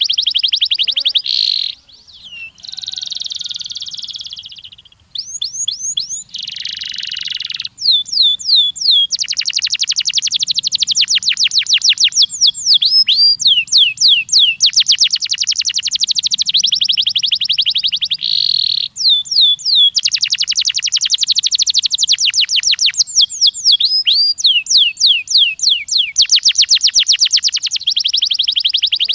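Domestic canary singing a long, loud song of rapid trills and rolling tours, with quick rising whistled sweeps repeated between fast buzzy rolls.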